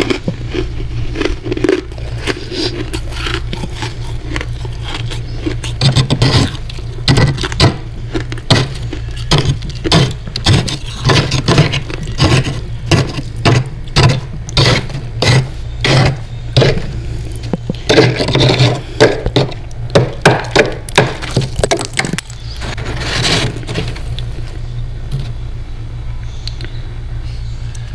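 Freezer frost crunching close to the microphone in a regular run of sharp crunches, a little over one a second, from about six seconds in until about twenty-two seconds. A steady low hum runs underneath.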